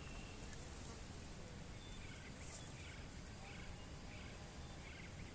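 Forest ambience: a steady high-pitched insect drone, with a bird giving a series of short, evenly repeated calls, about five over the last three seconds.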